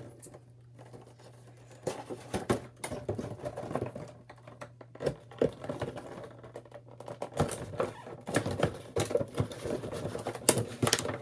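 Cardboard box of a vinyl figure being handled and worked open by hand: irregular taps, clicks and scrapes of fingers on cardboard and plastic packaging, busier in the second half. A faint low hum runs underneath and stops about seven seconds in.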